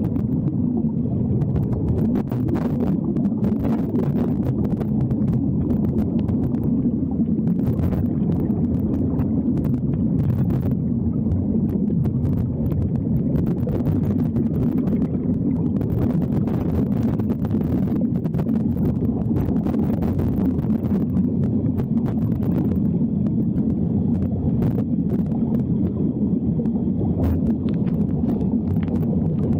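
Underwater ambience picked up by a camera in its housing: a steady, muffled low rumble with faint scattered crackles of bubbles and water movement.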